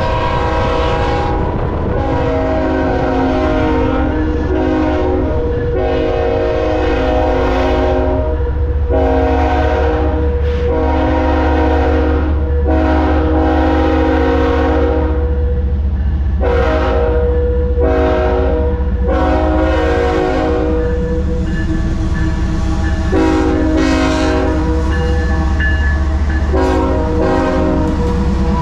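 Diesel freight locomotive's air horn sounding a long show-horn sequence: many blasts of several notes at once, some short and some held for a few seconds. Underneath is the steady low rumble of the locomotives and cars passing at speed.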